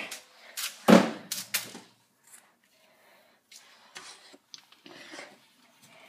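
A few sharp clicks and knocks in quick succession, the loudest about a second in, then faint scattered ticks.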